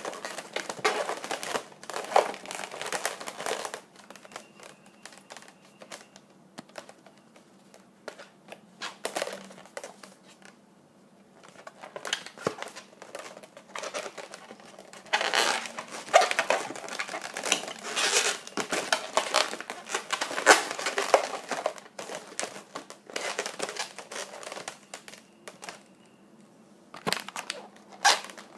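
Latex twisting balloons rubbing and squeaking as they are twisted and pressed together by hand, in bursts of scratchy handling noise with quieter pauses, the longest from about 4 to 12 seconds in.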